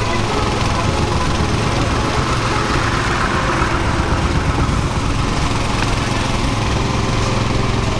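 A small engine or motor running steadily at a car wash, with an even low hum.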